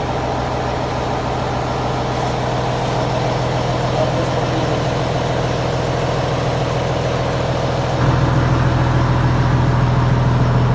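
Engine of a fish-feed pellet machine running steadily with a low hum, getting louder about eight seconds in.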